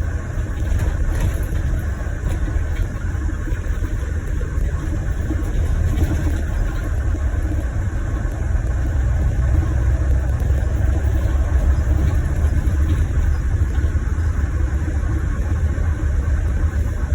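Scania Irizar i6 coach's diesel engine and road noise heard from inside the passenger cabin while the coach is driving: a steady low drone that grows a little louder about halfway through.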